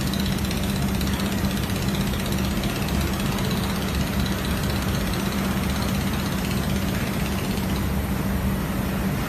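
Steady machine hum: a constant drone with a low rumble and even noise, unchanging throughout.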